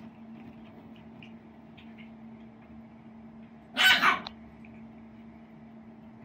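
A puppy scratching and digging at a padded pet bed, with faint scattered scratching ticks. About four seconds in, it gives one short, harsh bark-like yelp, the loudest sound here.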